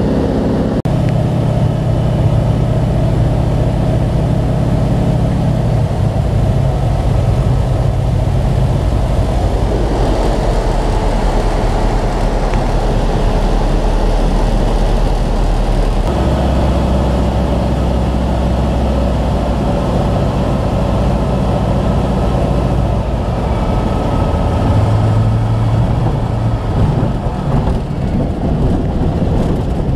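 PZL-104 Wilga 35A tow plane's nine-cylinder radial engine and propeller running steadily, a loud low drone whose pitch shifts in steps several times.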